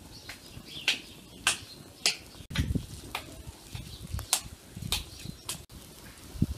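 Wet hands pressing and patting minced chicken onto kebab skewers: a run of sticky smacks, a little under two a second.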